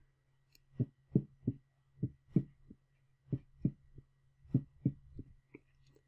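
Heartbeat with an S3 gallop: repeating triplets of dull thumps, S1 and S2 followed by a softer third sound, four cycles about 1.3 seconds apart in the 'Ken-TUCK-y' cadence. The third heart sound is blood turbulence as the ventricles fill during diastole, common and generally benign in children.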